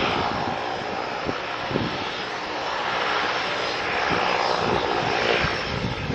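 De Havilland Canada DHC-6-300 Twin Otter's twin Pratt & Whitney PT6A turboprops running at taxi power, a steady propeller and turbine noise as the aircraft turns slowly on the runway.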